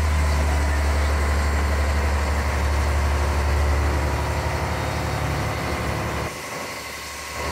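Passenger bumboat's engine running steadily with a deep drone, along with the hiss of water and wind around the boat. About six seconds in the low drone falls away and everything gets quieter.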